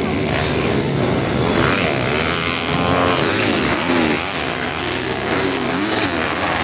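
Dirt bike engines revving on the track, their pitch rising and falling as the riders work the throttle through corners and jumps.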